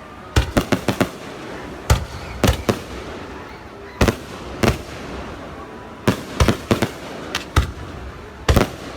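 Fireworks exploding in irregular sharp bangs, some in quick clusters of three or four, with a steady background hum of the surroundings between them.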